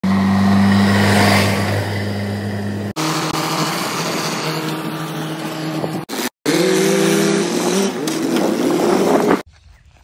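Diesel engines of a JCB backhoe loader and a tractor running in short clips joined by abrupt cuts. The sound breaks off sharply about three seconds in and again around six seconds. In the last clip the engine note rises and wavers before the sound cuts off near the end.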